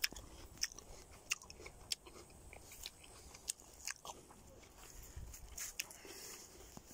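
Someone chewing a freshly picked sweet-and-sour plum close to the microphone: faint, irregular small clicks.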